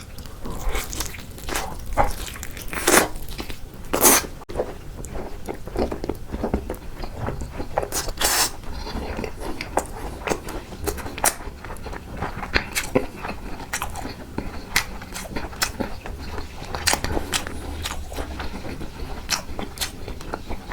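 Close-miked eating sounds: a person biting and chewing food with many short wet mouth clicks and smacks, and a few louder bites in the first half.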